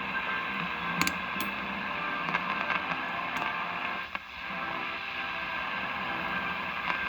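Detrola Model 579 tube AM radio's speaker giving a steady static hiss, with a few sharp crackles and a brief dropout about four seconds in, while it is tuned between stations.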